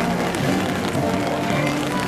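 Music with long held notes over a steady hiss of rain.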